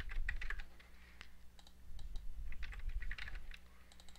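Computer keyboard keystrokes and mouse clicks in short scattered bursts while text is selected and copied.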